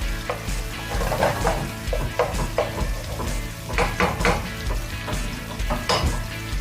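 Garlic sizzling as it fries in a pan, stirred with a utensil that scrapes and clicks against the pan again and again. Background music plays underneath.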